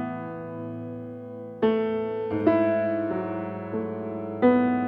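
Grand piano playing a slow, quiet piece: chords struck about once a second, each left to ring and fade before the next.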